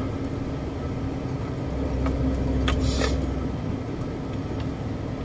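Ten-wheeler truck's diesel engine running steadily under way, heard from inside the cab. The low rumble swells for a second or so around two to three seconds in, and a short hiss comes about three seconds in.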